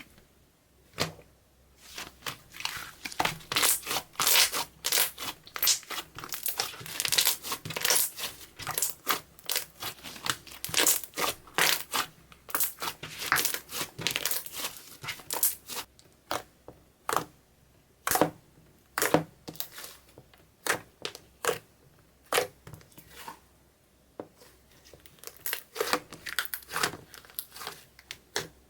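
Clear slime with eyeshadow mixed in, worked by hand: rapid crackling, popping and squishing as it is stretched, folded and pressed. The sounds come thick and fast at first, thin to separate pops about halfway through, then bunch up again near the end.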